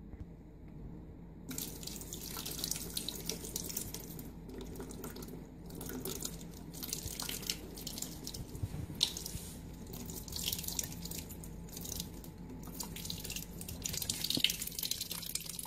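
A cat lapping water from the bowl of a bottle-fed pet water dispenser: wet splashing and dripping that starts about a second and a half in and carries on as a dense stream of small irregular splashes.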